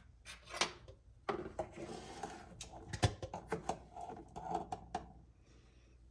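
A series of irregular light knocks and clicks, like household objects being handled and set down, loudest about three seconds in.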